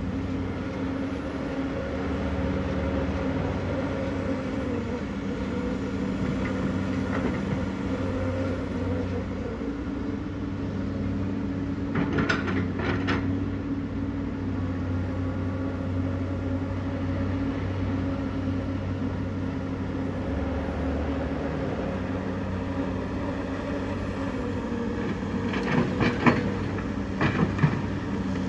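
Komatsu PC210LC hydraulic excavator's diesel engine running steadily, with short bursts of metal clanks about midway and again near the end.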